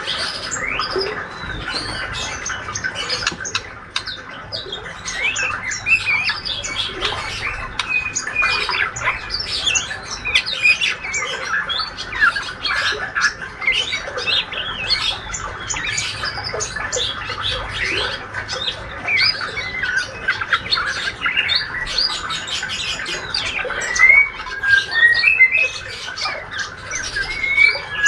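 Juvenile male white-rumped shama twittering a rapid subsong (ngriwik): a continuous stream of short chirps, squeaks and quick pitch slides, with a few louder notes near the end.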